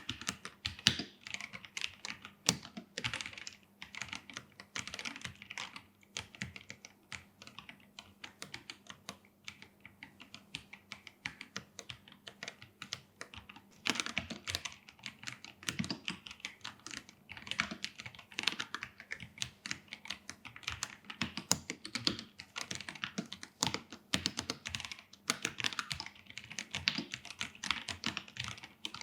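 Typing on an Akko PC75B mechanical keyboard with Akko CS Jelly Purple tactile switches and PBT keycaps: continuous, irregular keystroke clicks, with heavier clusters now and then.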